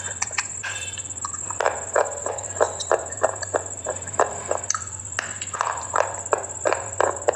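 Close-up crunching of something brittle being bitten and chewed: a quick, irregular run of sharp crunches, about three a second, over a steady high-pitched whine.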